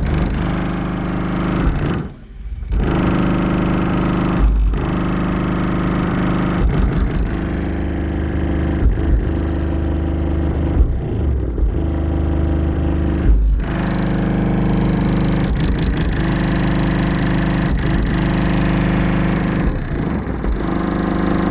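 Kicker subwoofer in a car playing very loud 25 Hz bass, heard as a heavy, distorted low drone held in long stretches; the bass briefly cuts out about two seconds in, with a few shorter breaks later.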